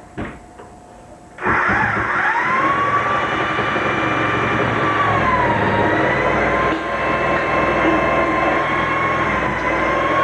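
A machine's motor switched on about a second and a half in, after a couple of knocks, its whine rising as it spins up and then running steadily over a rushing noise, with one brief dip in pitch midway.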